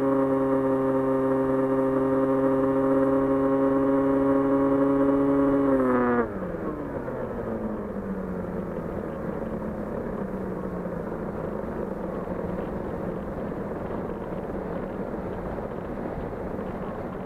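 Small electric FPV model plane's 2300KV brushless motor and propeller running with a steady high whine, then throttled off about six seconds in: the pitch drops sharply and keeps sliding down slowly as the propeller winds down, over a steady rush of wind as the plane glides.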